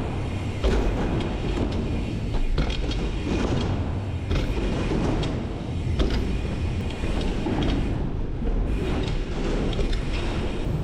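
Bike tyres rolling over packed dirt jumps, with a steady rumble and scattered knocks and rattles from the bike, heard from a camera riding along.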